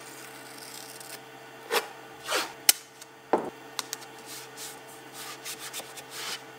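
Hobby knife cutting blue painter's tape on an aluminum sheet, then the tape being peeled up and pressed down by hand: a few scraping strokes and a couple of sharp clicks about two to three seconds in, then a run of short rubbing rustles near the end.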